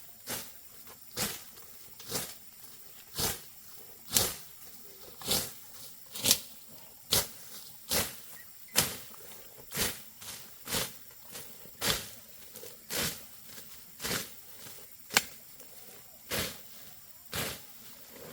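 A steady run of sharp strikes, about one a second, some harder than others.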